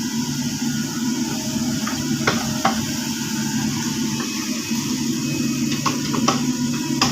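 Caterpillar 307.5 mini excavator's diesel engine running steadily under load while it digs out a waterlogged peat ditch, with scattered sharp knocks and the wet slosh of mud and water.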